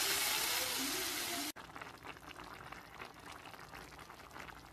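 Tomato broth sizzling and hissing in a hot pot of pasta shells, slowly dying down, until it cuts off sharply about one and a half seconds in. After that, the soft bubbling of the vegetable soup simmering, a faint hiss with fine crackles.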